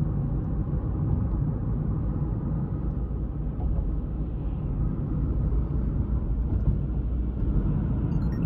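Steady low rumble of a car on the move: road and engine noise with no clear changes.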